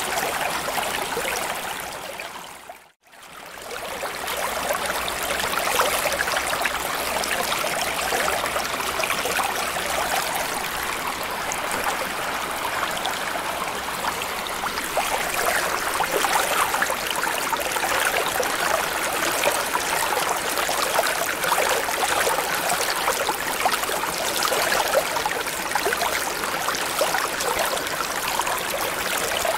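Underwater ambience of steady bubbling, trickling water with fine crackles through it. It fades out to near silence about three seconds in, then swells back up and runs on evenly.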